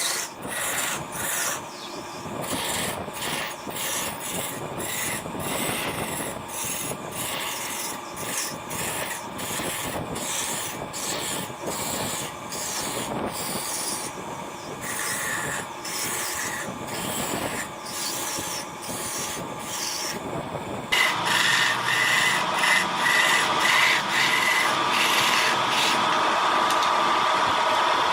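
A turning tool scraping and cutting wood on a lathe, in a rapid run of rasping strokes. About two-thirds of the way through it gets suddenly louder and a steady whine joins in.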